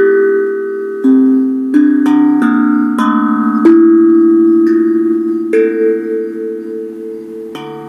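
Tankdrum D17 steel tongue drum, made from a propane tank, played with the fingers: about ten struck notes, single and in quick runs, that ring on and overlap as they slowly fade, the strikes spreading out in the second half. Picked up through a phone's microphone.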